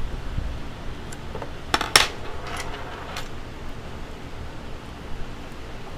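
Small metal clicks and scrapes of an X-Acto knife blade and needle-nose pliers prying at the lock ring inside an airsoft valve. A pair of sharp clicks comes about two seconds in, then a few lighter ticks.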